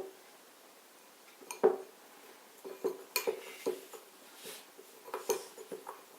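Light, irregular clinks and knocks of tableware as a flour-and-toothpaste slime is mixed and gathered in a dish, about a dozen strikes, the loudest a little under two seconds in.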